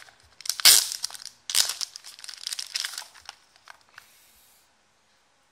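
Clear plastic bag crinkling around a hard plastic card case as hands turn and handle it. The crackling comes in irregular bursts and stops about three and a half seconds in.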